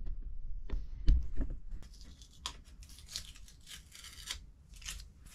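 A few sharp knocks as wooden battens and a wooden frame are handled on a workbench, then a run of short, scratchy strokes of a pencil marking the wood.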